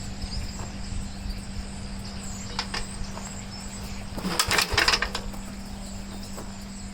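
One pull of the starter rope on a 1969 Gravely L's single-cylinder engine, about four seconds in: a brief burst of cranking strokes that dies away without the engine firing, a sign of the no-spark fault the engine has.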